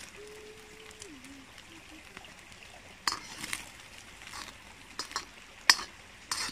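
Scattered sharp clicks and clinks of cooking utensils against pots and pans, starting about three seconds in, with the loudest one shortly before the end. Near the start a short steady tone drops in pitch.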